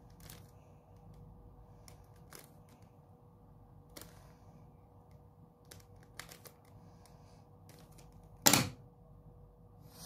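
Plastic Rubik's cube layers being turned by hand: scattered soft clicks, with one louder knock near the end as the cube is set down on the wooden table.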